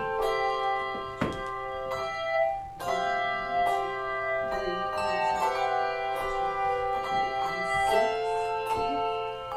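Handbell choir playing a piece: several bells rung together in chords, their notes ringing on and overlapping as new bells are struck. About two and a half seconds in the ringing is briefly cut short before the next chord sounds.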